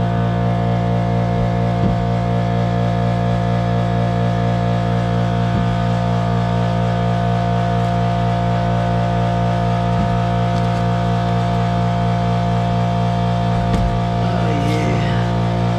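Background music with a steady, sustained texture that cuts off abruptly at the end.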